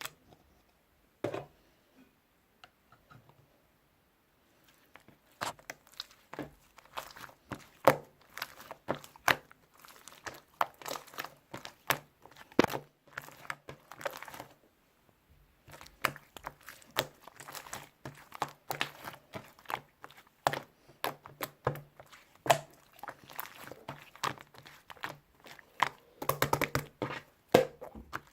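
Slime being squeezed and poked by hand, giving a dense, irregular run of sharp clicks and crackles that starts about five seconds in, after a near-quiet stretch.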